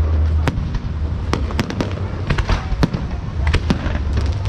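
Fireworks going off in a show: irregular sharp bangs and cracks, some close together, over a steady low rumble.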